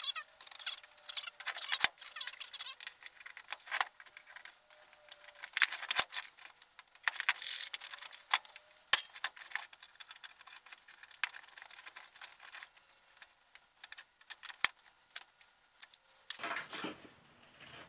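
Steel case and internal parts of an old computer power supply clinking, clicking and rattling as it is handled and pulled apart by hand. The clicks are irregular, with a denser run of clatters a third of the way through.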